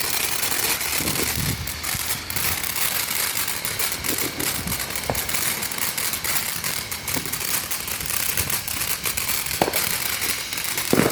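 A lit firework hissing and crackling densely, with a couple of louder pops near the end.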